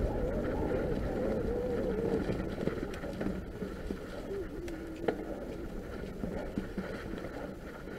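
Norco Fluid full-suspension mountain bike rolling along a dirt trail covered in fallen leaves: a steady tyre and ground rumble with wind on the microphone and a faint wavering hum, and a sharp knock about five seconds in.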